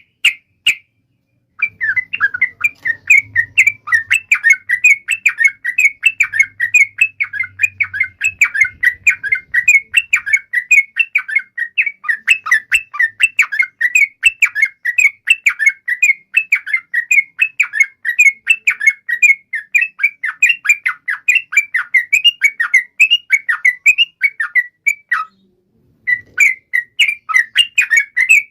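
Yellow-vented bulbul singing a long, unbroken run of rapid chirping notes, each note short and falling in pitch, as lure song to set other bulbuls singing. The song stops for about a second near the end, then resumes.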